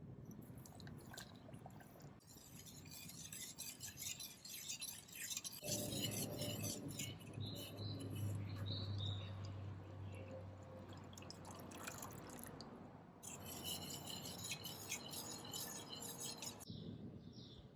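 Liquid pouring and dripping with light clinks of glass, in several short clips that cut off abruptly.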